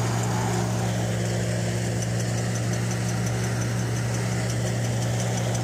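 Tractor-driven peanut thresher running steadily, its engine and threshing drum making a constant, even machine hum.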